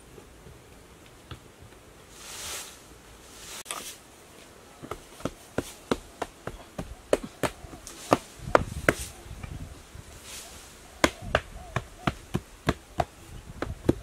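Sharp, irregular knocks of a hand digging tool striking hard earth, a couple to three a second through the second half, with two brief rushes of loose soil being scraped or pushed.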